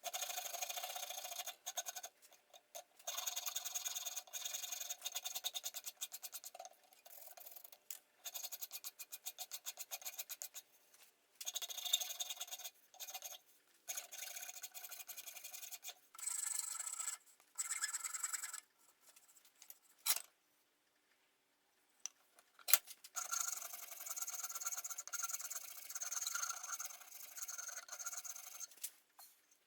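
Hand rasp scraping back and forth across a hickory hammer handle, fitting it to the head: runs of quick strokes broken by short pauses, with a brief silence and a couple of knocks about two-thirds through.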